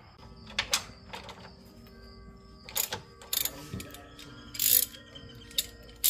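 Socket ratchet wrench clicking in short bursts and rasping runs while tightening a sway bar link nut.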